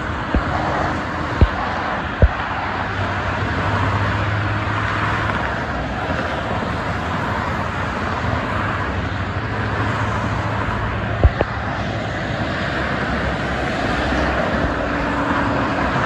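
Continuous traffic noise from cars and trucks on a busy multi-lane expressway, with a low engine hum that comes and goes as heavier vehicles pass. A few sharp clicks cut through: three in the first couple of seconds and one about eleven seconds in.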